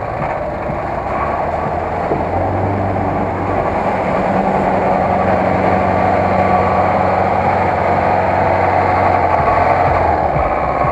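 GAZ-66 truck's engine running under load as the truck drives through a mud pit, a steady low drone that grows louder as the truck comes up close.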